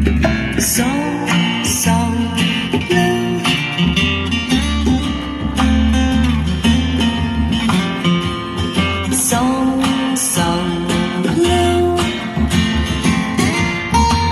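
Recorded music with guitar, bass and a steady beat, played back through a vintage National Panasonic boom box.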